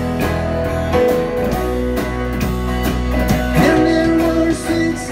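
Live band playing an instrumental passage: electric and acoustic guitars, bass guitar and drum kit, with a steady drum beat.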